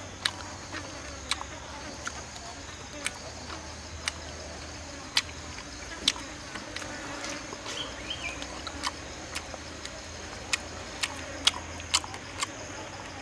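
Steady high-pitched insect buzz of a forest, with irregular sharp clicks scattered through it every second or so.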